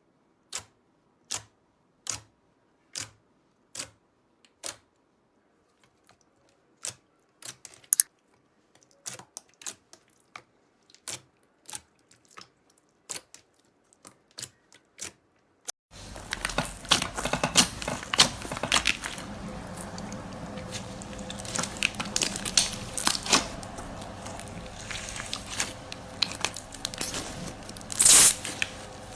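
Slime being handled by hand. First comes a series of sharp pops or clicks, about one a second and evenly spaced, then irregular. About halfway through it turns into a dense, continuous crunchy crackling, with a louder burst near the end.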